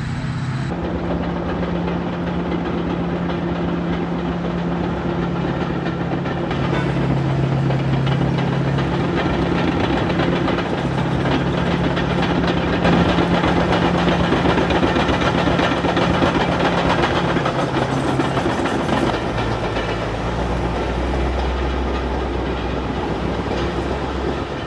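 Tracked bulldozer's diesel engine running hard, with the continuous clanking of its steel tracks. The engine note drops lower about twenty seconds in.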